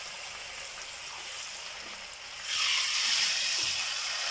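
Cauliflower pieces deep-frying in hot coconut oil, a steady bubbling sizzle that grows louder and brighter about halfway through.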